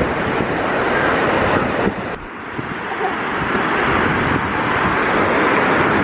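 Ocean surf washing up the beach, with wind buffeting the microphone. The level drops briefly about two seconds in, then the steady wash returns.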